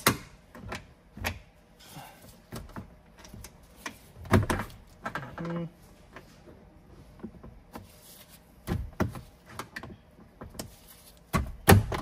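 Metal clip remover prying a plastic trim cover off its metal clip: scattered clicks and knocks of tool on plastic, with a loud thud about four seconds in and a cluster of loud thuds near the end as the clip lets go.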